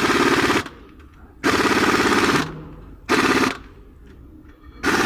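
Pneumatic impact wrench hammering in four short bursts of rapid impacts, each under a second, with brief pauses between, as it works bolts on a truck engine.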